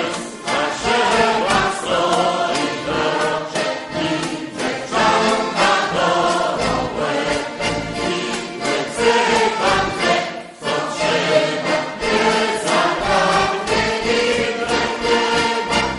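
A choir singing a Kashubian folk song, several voices together.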